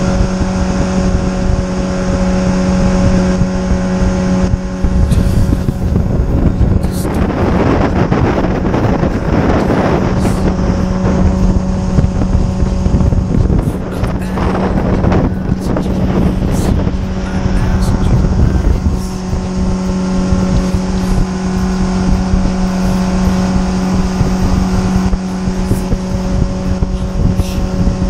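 40 hp outboard jet-boat motor running steadily at speed, one constant engine note. A rushing noise of wind and water swells over it for several seconds in the middle.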